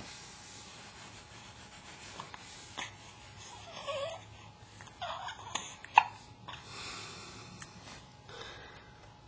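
Baby hiccuping: a few short, sharp hiccups among soft breathing, the sharpest about six seconds in.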